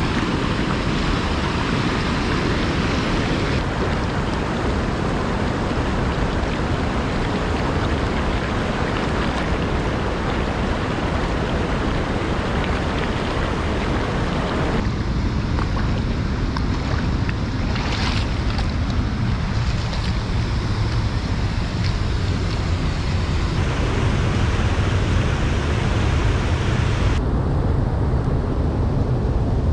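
Steady rush of a fast, shallow river running over rocks, with wind rumbling on the microphone. The tone of the rush shifts abruptly a few times.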